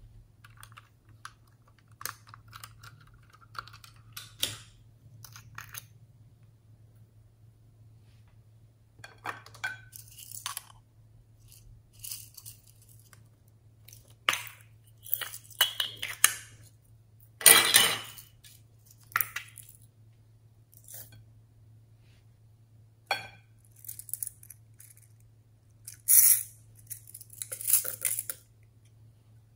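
Small plastic toy containers being clicked and pulled open, with beads and sequins tipped out and clinking onto slime in a glass bowl: irregular short clicks and rattles, the loudest a little past halfway.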